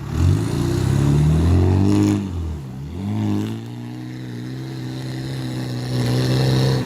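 Off-road vehicle's engine revving hard under load. The pitch climbs, falls away briefly about two and a half seconds in, then climbs again and holds high until it drops off right at the end.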